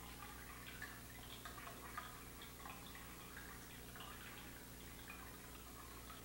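Faint, irregular small ticks and drip-like plinks, several a second, over a steady low hum, with one sharper click about two seconds in.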